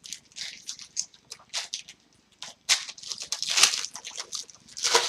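Hockey card pack wrappers being torn open and handled, a run of short, irregular crinkles and crackles.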